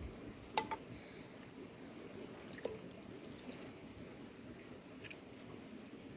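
A machete blade knocks sharply against stone about half a second in, followed by a few lighter clicks and faint wet handling as small river fish are cleaned by hand.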